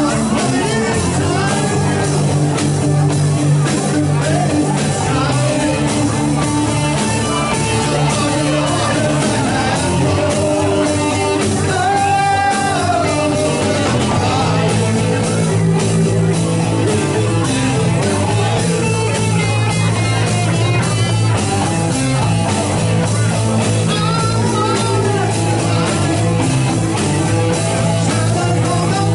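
Live rock band playing: a singer's voice over electric guitar, bass, drums and keyboards.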